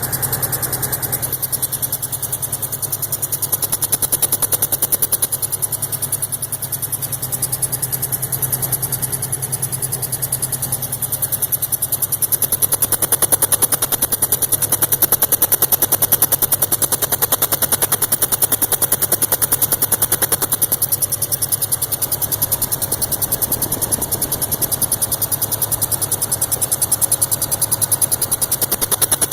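2002 Subaru WRX's turbocharged flat-four engine running with a fast, evenly repeating chirp, which the owner traces to the turbo inlet area.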